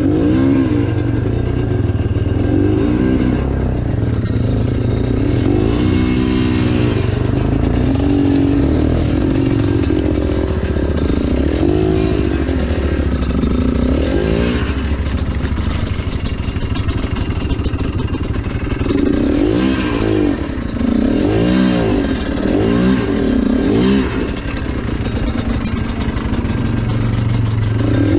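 Enduro dirt bike engine worked hard on a rough trail, its revs rising and falling over and over as the throttle is opened and closed.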